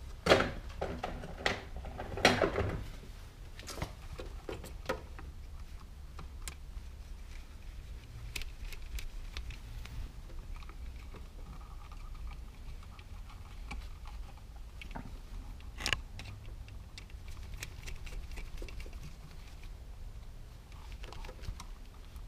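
Screwdriver and hands working the terminal screws and wires of a GFCI outlet pulled out of its wall box: scattered small clicks, taps and scrapes of metal on plastic. A cluster of louder clatters comes in the first three seconds and one sharp click about sixteen seconds in, over a steady low hum.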